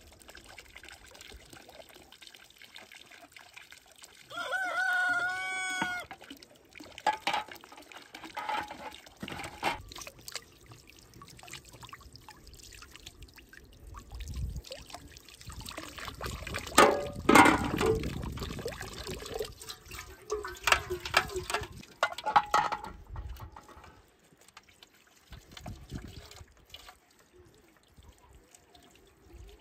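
A rooster crows once, a call of about two seconds starting about four seconds in. Scattered knocks and clatter follow, the loudest a sharp knock about 17 seconds in.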